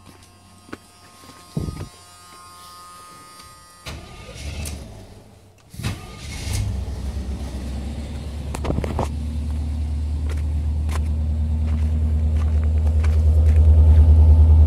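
A 1990 Chevy Van 30 school bus's 350 V8 cranks and catches about four to six seconds in, then settles into a steady low idle with an even exhaust pulse that grows louder near the tailpipe. Footsteps crunch on icy gravel in the first seconds.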